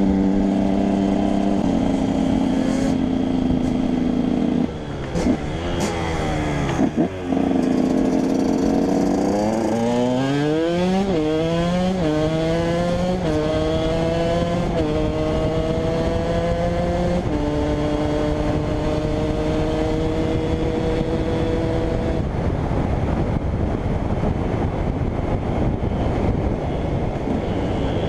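KTM 125 EXC two-stroke single-cylinder engine running steadily, with a couple of quick throttle blips about five to seven seconds in. It then pulls up through the gears, its pitch climbing and stepping down at each of several shifts, and holds a steady note for a few seconds. Near the end the tone gives way to a rough, uneven sound.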